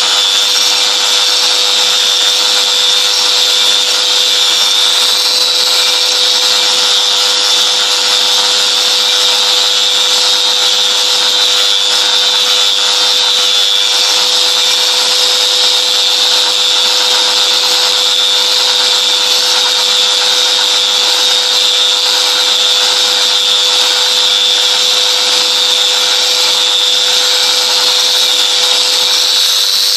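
Angle grinder running steadily at full speed as it grinds a concrete floor to remove the cement laitance, a constant high motor whine over the grinding noise.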